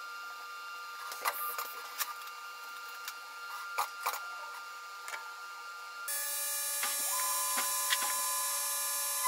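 Syil X7 CNC milling machine humming steadily at standby, with sharp clicks and taps as it is set up at its control panel. About six seconds in, it switches to the mill cutting metal in sped-up footage: a louder, dense, high whirring full of tones and rapid ticks.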